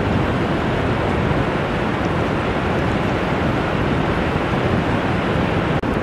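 Ocean surf washing steadily onto a sandy beach, with a low rumble of wind on the microphone. The sound drops out for an instant just before the end.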